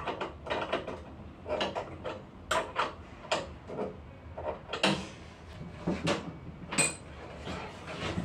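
Irregular clicks and knocks of parts being worked by hand inside a disassembled Lavazza Espresso Point EP 2100 coffee machine. A few louder knocks near the end carry a short metallic ring.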